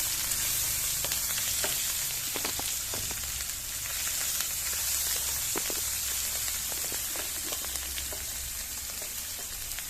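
Ground spice paste sizzling in hot oil in a pan as it is sautéed, a steady hiss with scattered small pops and the occasional scrape of a spatula stirring.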